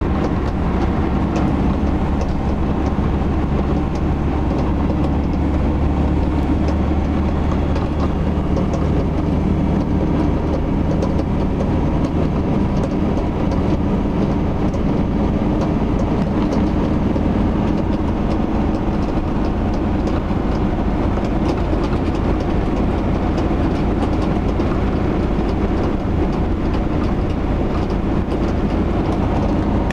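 Cab noise of a 2009 Mercedes-Benz Sprinter 311 diesel van at road speed: steady engine and road rumble with repeated clicking from under the right-hand side of the dashboard. The click comes in only from about 70 km/h, and the owner takes it for a sign that something is wrong.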